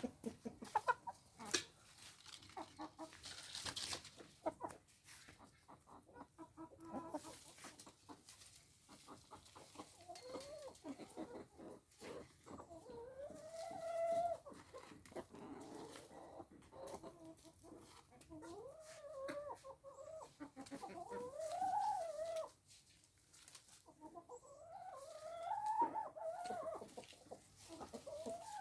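Free-range chickens clucking and calling, with a run of short drawn-out calls that rise and fall in the second half. Quick clicks and taps run through the first part.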